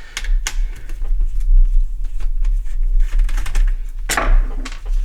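Irregular light clicks and taps of small plastic and metal parts being handled and worked loose while taking a Sinclair QL's microdrive mechanism out of its case, with a rustly scrape about four seconds in. A steady low mains hum runs underneath.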